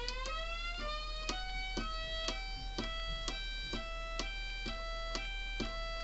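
Homemade electronic mini tornado siren sounding a high-low signal. Its tone steps between two pitches about twice a second, with a click at each change, as a push button switches an extra resistor in and out of the tone circuit. During the first second the pitch is still climbing from the wail.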